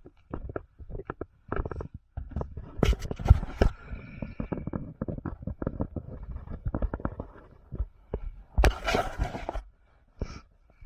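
Irregular knocks, scuffs and rustling of a moving player's gear and footsteps against a body-worn microphone, with a louder rushing scrape about nine seconds in.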